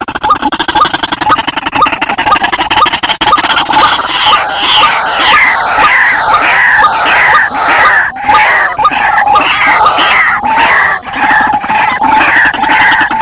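White-breasted waterhens calling: a noisy, continuous run of harsh repeated calls, about two a second, growing fuller and louder about four seconds in. It is a lure recording used to draw in wild waterhens.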